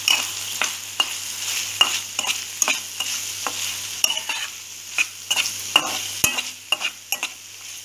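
Metal spatula stirring capsicum curry in a metal kadai, clinking and scraping against the pan at irregular strokes about once or twice a second, over a steady sizzle of the frying vegetables.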